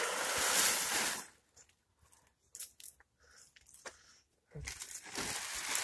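A large white row cover rustling and crinkling as it is pulled off a low tunnel and gathered up. The sound comes in two loud bursts, the first lasting about a second and the second starting near the end, with a quieter stretch of a few light clicks between.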